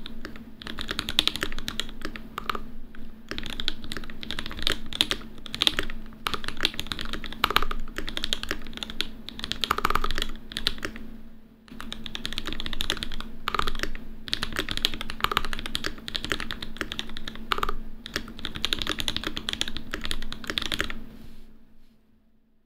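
Typing on an Ikki68 mechanical keyboard with lubed C3 Tangerine linear switches, Deskeys switch films and GMK keycaps: a steady run of keystrokes. There is a brief pause about halfway through, and the typing dies away near the end.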